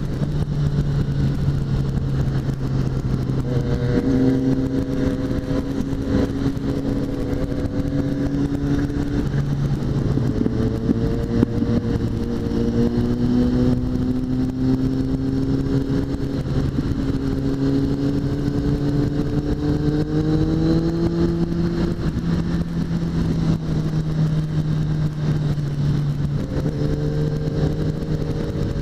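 Suzuki GSX650F's inline-four engine running at cruising speed over a steady rush of wind and road noise. Its pitch dips about a third of the way through, climbs slowly for several seconds as the throttle is opened, then holds steady.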